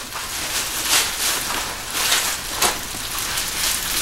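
Plastic bag crinkling and rustling in irregular bursts as a wrapped statue body is handled and pulled out of its packing.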